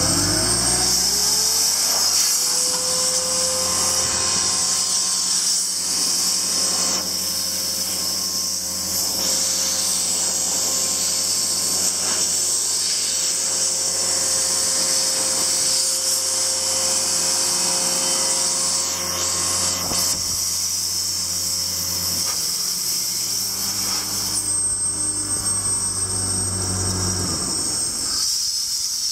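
Joy portable air compressor running with its engine speeding up over the first couple of seconds, while compressed air hisses steadily from an air wand on the hose. Near the end the air hiss eases and the engine's low running note drops away.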